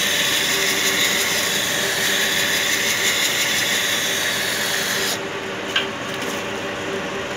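Textile lab sample machine running with a steady hum and hiss. The hiss cuts off suddenly about five seconds in, followed by a single sharp click.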